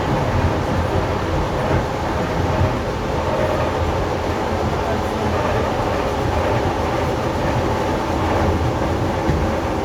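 ED4M electric multiple unit running under traction power: a steady rumble of wheels on rail with a faint steady hum from the traction drive.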